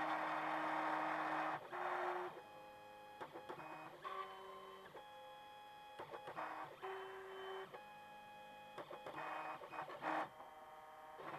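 Monoprice Mini Delta delta 3D printer's stepper motors whirring as the print head moves: a louder steady whir for the first second and a half, then a string of short whines that jump from one pitch to another with brief pauses between moves.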